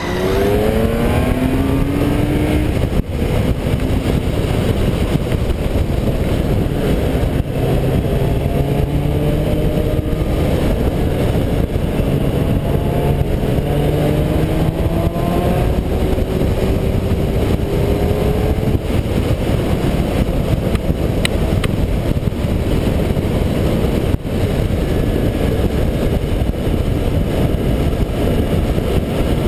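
BMW K1600 GT inline-six engine accelerating through the gears under a rider, its pitch rising in several sweeps, each cut short by a shift. Heavy wind rush on the on-bike microphone runs under it and takes over in the second half as the bike holds speed.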